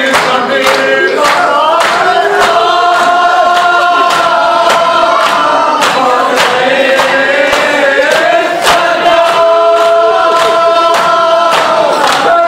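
Crowd of Shia mourners chanting a Muharram lament in unison, with long held notes, over a steady beat of hands striking chests (matam) roughly every two-thirds of a second.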